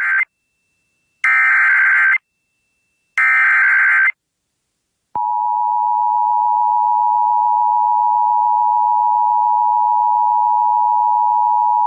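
Emergency Alert System SAME header: the tail of one burst of screechy digital data tones, then two more identical bursts about a second long with a second's gap between them. About five seconds in, the steady two-tone EAS attention signal starts and holds. Together they mark the start of a new emergency alert.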